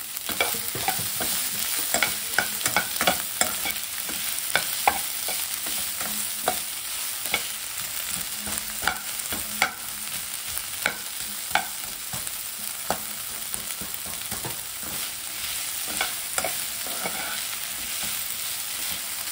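Sliced onions sizzling in hot oil in a non-stick frying pan, with a steady hiss. A slotted metal spoon scrapes and taps against the pan at irregular intervals as the onions are stirred.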